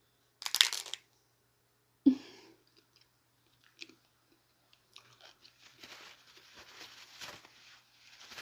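A person eating a chicken taco close to the microphone: a loud crunchy bite about half a second in, a thump about two seconds in, then steady crackly chewing from about five seconds in.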